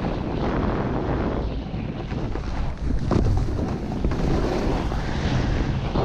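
Wind buffeting an action camera's microphone during a snowboard run, mixed with the board's base and edges hissing and scraping over snow. The hiss swells and fades as the board turns.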